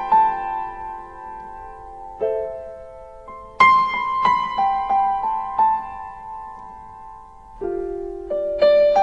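Background piano music: a slow melody of single struck notes over held chords, with a new run of notes about three and a half seconds in.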